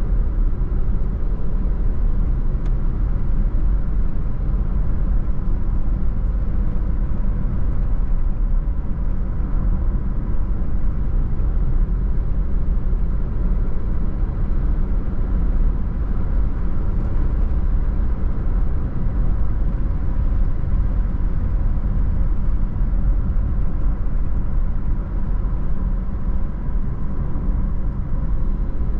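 Car being driven, with steady road and engine noise and a low rumble that does not change.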